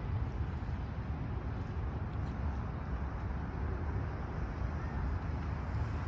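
Steady low rumble with a fainter hiss above it: outdoor city ambience.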